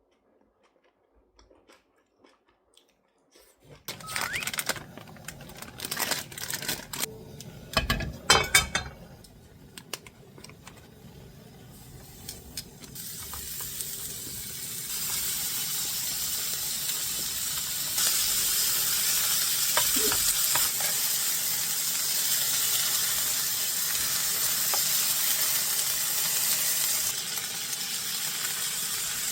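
Kitchen clatter of utensils and cookware, then food sizzling steadily in a hot pan from about halfway through, growing louder a few seconds later.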